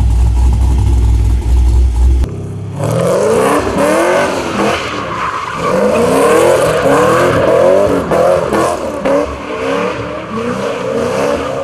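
A car's engine revving hard over and over in rising sweeps, with tyre squeal as it spins its wheels in a smoky burnout. It starts about three seconds in, after a deep low rumble.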